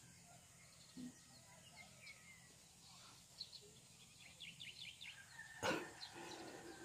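Faint outdoor quiet with small birds chirping, then a single sharp crack about five and a half seconds in.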